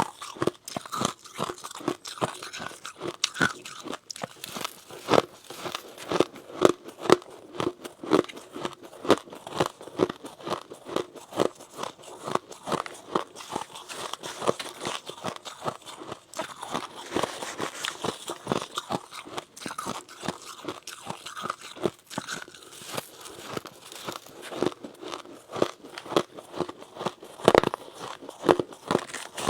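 Close-miked biting and chewing of powdery freezer frost: a long, irregular run of crisp crunches, about two a second.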